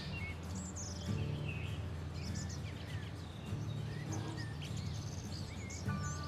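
Birds chirping now and then, in short separate calls, over a steady low hum.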